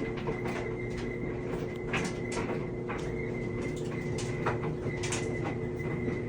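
Brand-new LG clothes dryer running: a steady hum with a held tone, broken by short irregular squeaks every half second to a second. An abnormal, horrible noise for a new machine.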